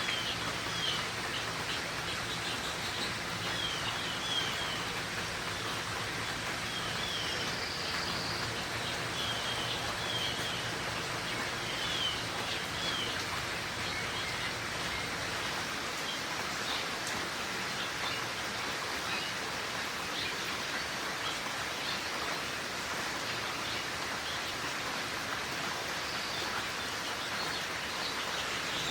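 Steady rain shower hissing, with small birds giving short high chirps, often in quick runs of two or three, through the first half and again near the end.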